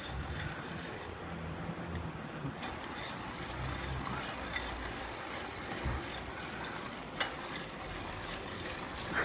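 A mountain bike being ridden over pavement: steady rolling noise with mechanical rattling and ticking from the bike. There is a low rumble in the first half and a couple of sharp knocks in the second half.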